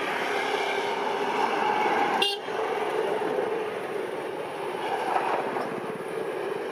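WDG 3A ALCo diesel locomotive, with its 16-cylinder ALCo 251 engine, running steadily as it hauls a train slowly out of a station. There is one sharp click a little over two seconds in.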